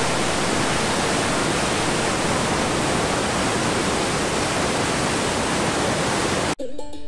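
Irrigation canal water rushing over a drop wall (canal fall) as churning white water, a loud steady rush. It cuts off suddenly about six and a half seconds in, and background music begins.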